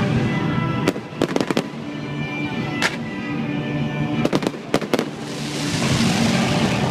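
Aerial fireworks going off in sharp bangs over show music: one about a second in, then a quick run of several, and further bangs around three and four to five seconds in. From about five seconds a crackling hiss swells, as glittering stars burn out.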